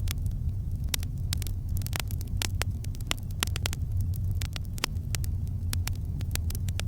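Campfire burning: a steady low rumble of the flames with many sharp crackles and pops from the burning wood, several a second and irregular.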